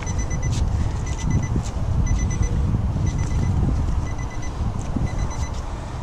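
A van's door-open warning chime: a quick run of high beeps repeating about once a second, over a low rumble and a few knocks.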